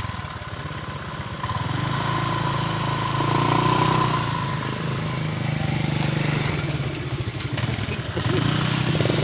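A small engine running steadily with an even low pulse.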